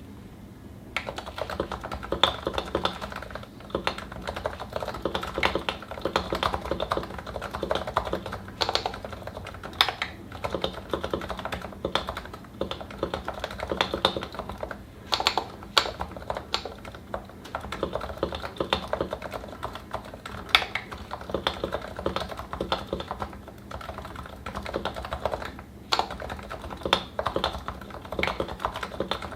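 Continuous typing on a Realforce 87u Topre electrostatic-capacitive keyboard with 55 g switches, lubed with Tribosys 3204 and Novatouch sliders, fitted with GMK keycaps in an aftermarket Norbauer case. The keystrokes start about a second in and run on as a rapid stream of short, muted thocks.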